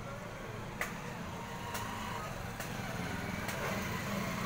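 Steady low rumble of street traffic, with four sharp clicks about a second apart.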